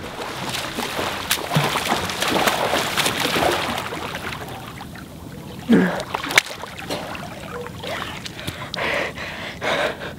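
A swimmer's front-crawl strokes splashing through pool water, easing off about four seconds in. A sharp slap about six seconds in as a hand reaches the pool's edge, then panting breaths near the end.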